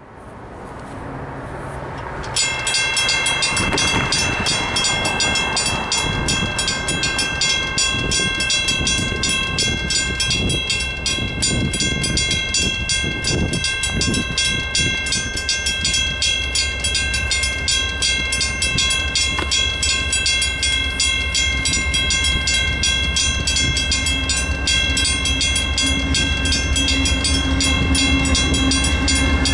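Mechanical railroad crossing bell ringing with rapid, even strokes, starting about two seconds in. A train's low rumble builds beneath it near the end as the train approaches the crossing.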